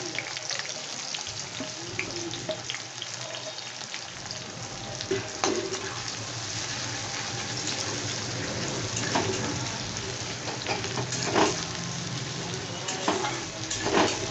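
Chopped onion frying in hot mustard oil in a kadai with a steady sizzle. It is stirred now and then, with a few short sharp scrapes in the second half.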